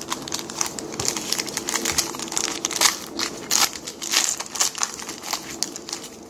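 A trading-card pack's wrapper crinkling and crackling in the hands as the pack is torn open, a fast, irregular run of crinkles.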